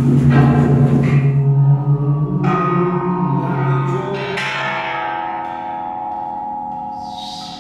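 Sound sculpture struck a few times, each strike ringing on in bell-like tones that slowly fade. A low steady hum sounds under the first two seconds.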